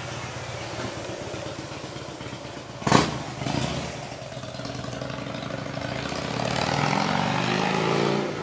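A vehicle engine running in the background, steady at first, then growing louder with its pitch rising and falling over the last couple of seconds before dropping away. A single sharp knock about three seconds in is the loudest sound.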